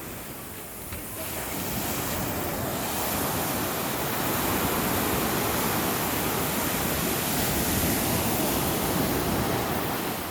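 Sea surf washing ashore: a steady rushing wash that swells about a second in and holds, with wind on the microphone.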